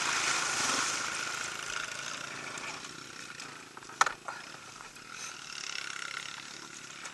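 Small dirt bike engine running at idle, getting quieter over the first few seconds, with one sharp click about four seconds in.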